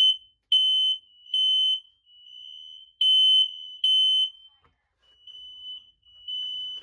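Home smoke detector sounding its alarm while its test button is held: a high-pitched beep repeated roughly every 0.8 s, some beeps loud and some noticeably quieter.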